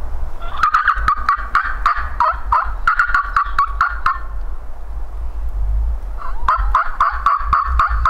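Wild turkey gobbling: a bout of rapid, rattling gobble notes from about half a second in to about four seconds, then another starting a little after six seconds, over a steady low wind rumble on the microphone.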